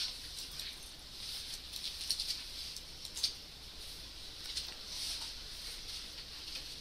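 Faint rustling and scattered light clicks over a steady hiss: classroom room noise as the lecture breaks up.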